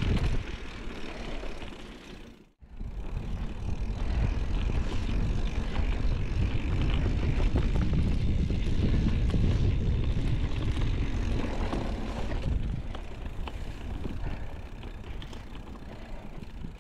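Mountain bike riding along dirt singletrack: wind rumbling on the microphone over tyre noise, with many small clicks and rattles from the bike. The sound cuts out briefly about two and a half seconds in and grows quieter near the end.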